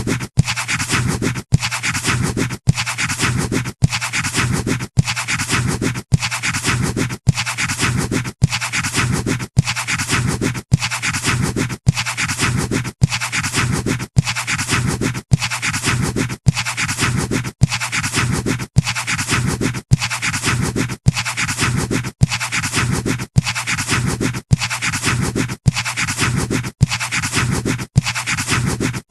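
Pencil scratching on paper, a short sound-effect loop that breaks off and starts again about once a second.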